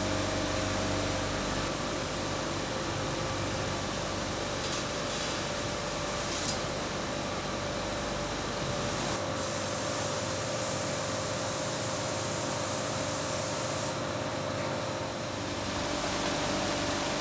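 Steady machine and ventilation hum of a factory paint shop, with a spray gun hissing continuously for about five seconds a little past the middle.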